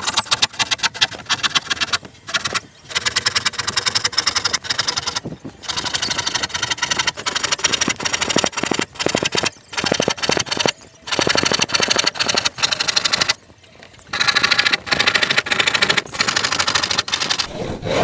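Hand saw cutting through marine plywood in quick back-and-forth strokes. The sawing runs in long spells broken by a few short pauses.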